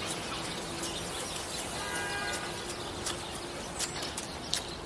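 Outdoor city park ambience: a steady wash of distant background noise, with a held tone about two seconds in and a few sharp clicks near the end.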